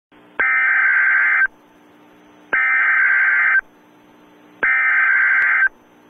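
NOAA Weather Radio Emergency Alert System header: the SAME digital data burst sent three times, each about a second long with about a second's pause between. It marks the start of an alert activation for a Civil Emergency Message.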